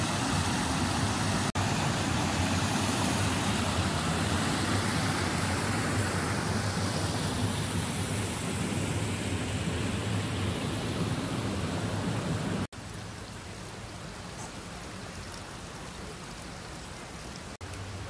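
Steady rush of water from a small waterfall and the rocky river below it. After an abrupt cut about two-thirds of the way through, a quieter, softer flow of water follows.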